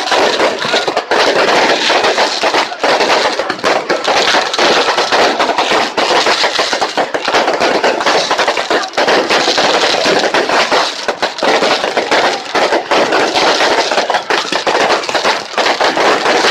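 Fireworks crackling and popping in a loud, dense, unbroken stream of small bangs.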